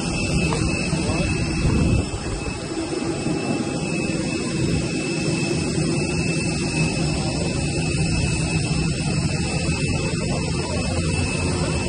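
Steady engine drone with a low rumble and thin, constant high-pitched whines over it.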